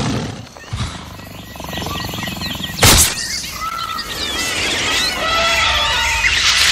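Recorded jungle soundscape of birds chirping played over a sound system as the intro to a dance track, with one sharp crash about three seconds in. A loud noisy swell comes in near the end as the music starts.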